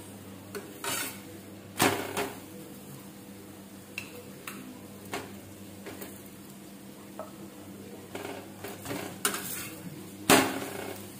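Metal utensils knocking and scraping against a tawa (flat griddle) as an aloo paratha is turned and pressed while it cooks. There are scattered clanks, the loudest about two seconds in and again near the end.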